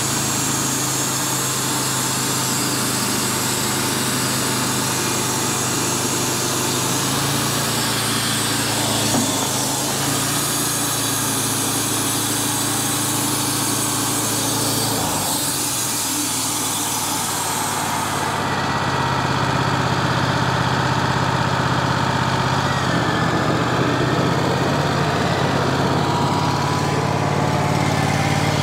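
Wood-Mizer portable band sawmill running steadily as it mills a walnut log. A steady engine drone sits under a high hiss, and the top of the hiss drops away about two-thirds of the way in.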